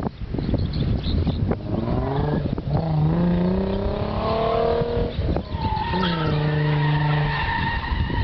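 A car engine revs up hard for a few seconds, eases off, then revs again as the car drifts on the course. A steady tyre squeal comes in over the last couple of seconds.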